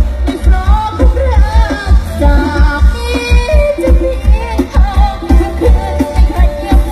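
Isan serng folk-pop with a singing voice played loud through a rot hae sound-system truck, with a fast, heavy bass beat pounding under the melody during a sound check.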